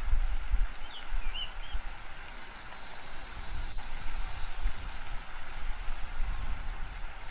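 Steady low rumble with a hiss over it, a background ambience with a few short high chirps scattered through it.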